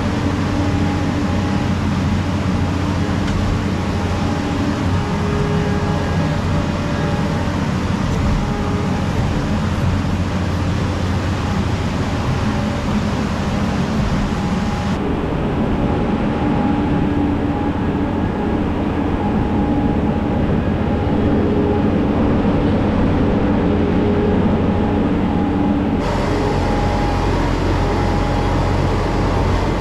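Engine of a farm machine running steadily under load, with its tone shifting abruptly twice.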